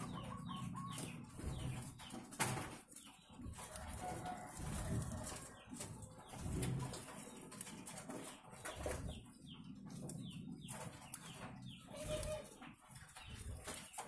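Ringneck doves (puter) in an aviary cooing in low, repeated swells, with short high chirps from other birds.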